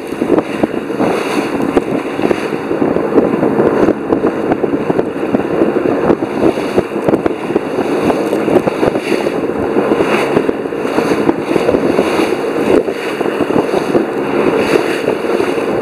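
Water rushing and splashing along the hull of a sailboat driving fast through choppy water, mixed with wind noise. It is a loud, steady rush with an uneven churning texture.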